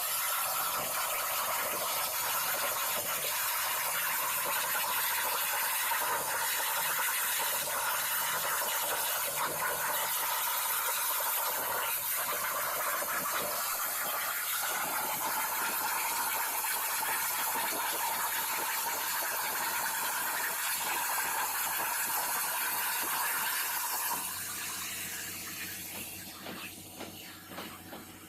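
CNC plasma cutter's torch cutting, a steady loud hiss of the arc and air jet. It cuts off about 24 seconds in and the hiss dies away gradually.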